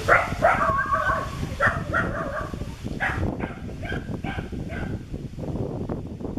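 Long-tailed macaque calling: a run of high-pitched calls, several long ones in the first three seconds, then shorter ones that stop about five seconds in.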